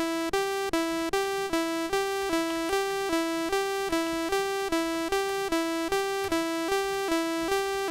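A Commodore 64 SID chip plays a looping two-note sawtooth pattern, alternating G4 and E4 about two and a half notes a second. Each note starts with a brief peak and then holds at a steady level because sustain is on, so the notes run into one another without gaps, which is too long for the piano sound being built.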